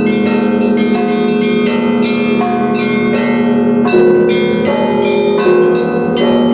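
Russian Orthodox church bells rung by hand: a fast, dense pattern of small bells struck over a steady ringing lower bell, with a louder strike about four seconds in.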